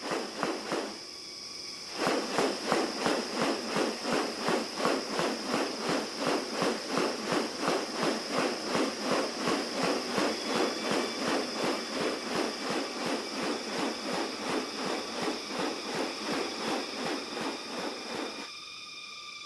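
Insects calling: a steady high-pitched drone, joined about two seconds in by a loud, rhythmic pulsing call of about two to three pulses a second, which stops shortly before the end.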